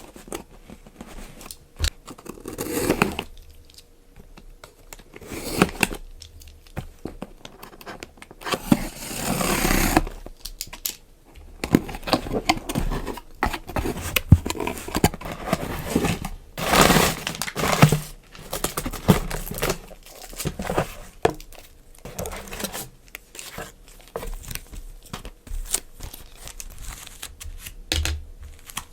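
Packaging being crinkled and torn open by hand as a book is unboxed: irregular rustling bursts with small clicks and taps, the loudest bursts about a third and about halfway in.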